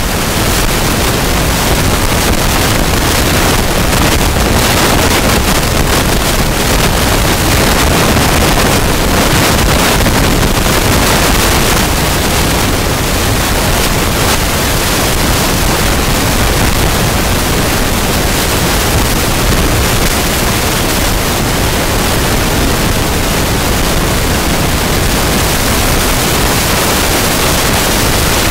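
Rugby crowd cheering and applauding in one steady, loud wash of noise celebrating a home win, with wind buffeting the microphone.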